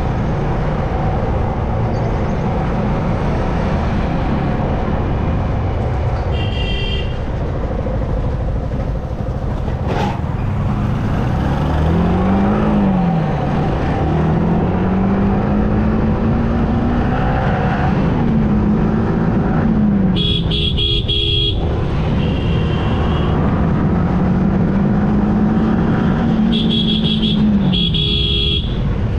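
Yamaha R15M motorcycle's single-cylinder engine rising and falling in pitch as it accelerates and eases off, with wind rushing over the microphone. A vehicle horn honks several times, in short toots and one blast of over a second about two-thirds of the way through.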